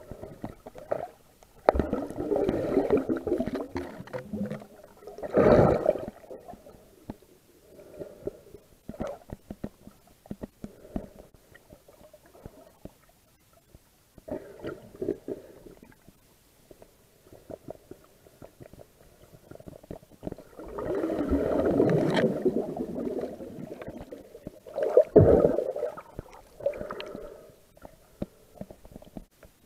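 Muffled underwater rumbling and gurgling picked up through a submerged camera housing as a snorkeler swims over seagrass. It swells louder twice, near the start and again past the middle, between stretches of faint clicking.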